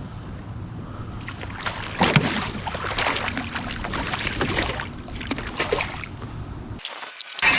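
Wind rumbling on the microphone aboard a fishing boat, with a run of knocks, rustles and splashes from about a second and a half in. Near the end the rumble drops out briefly and a few sharp clicks follow.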